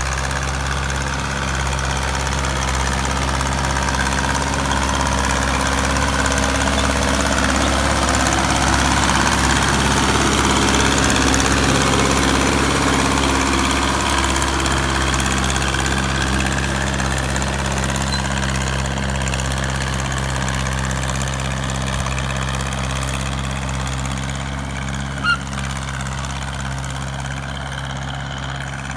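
Ford 971 tractor's four-cylinder diesel engine running steadily under load while pulling a three-bottom plow. It grows louder as the tractor comes past, peaking around the middle, then fades as the tractor moves away. A single sharp click sounds near the end.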